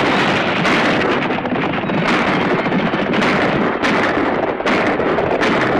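A team of horses and riders galloping hard together, a dense continuous clatter of hooves and stagecoach wheels, with several sharp cracks standing out across it.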